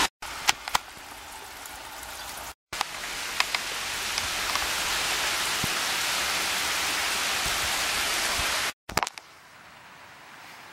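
Heavy rain falling, a steady hiss with a few sharp ticks, broken by three brief dropouts; after the last one, near the end, the rain is much lighter.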